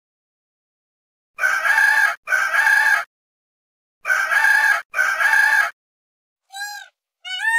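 Rooster crowing twice, each crow a harsh call in two parts. Near the end, a different animal gives two short, clear, arching wailing calls.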